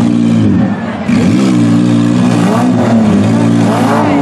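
Minivan engines revving hard in a demolition derby, their pitch rising and falling, with a brief drop in level about half a second in.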